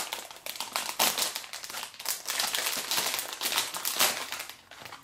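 Shiny plastic blind-bag toy packet crinkling and crackling as it is handled and torn open by hand, dying down near the end.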